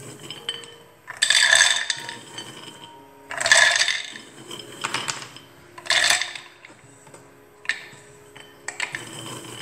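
Handfuls of whole shelled hazelnuts rattling and clattering as they are scooped from a metal tray and dropped into the plastic bowl of a mini food chopper, about five times, a second or two apart.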